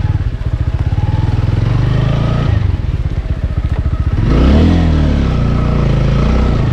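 Motorcycle engine running at low speed on a rough trail. About four seconds in it revs up, the pitch rising and then wavering back down over a couple of seconds.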